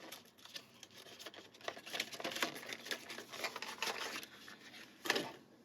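Small plastic tool case and its contents being handled and opened: scattered light clicks, taps and scrapes, busiest in the middle, with a louder clack near the end.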